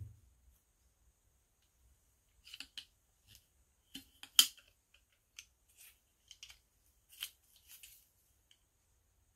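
Sectioned aluminium tube stakes being handled and folded together: a soft thump at the start, then a string of light metallic clicks and clinks as the tubes knock together, with one sharper clack about halfway through.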